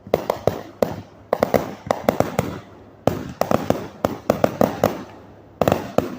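Fireworks display going off: rapid volleys of sharp bangs, several a second, coming in clusters with brief lulls between them.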